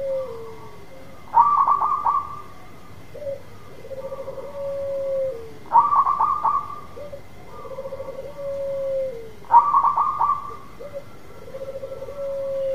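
Zebra dove (perkutut) singing its repeated cooing song about every four seconds: a loud stuttering burst of notes, then a lower purring trill that ends in a long drawn-out note dropping in pitch.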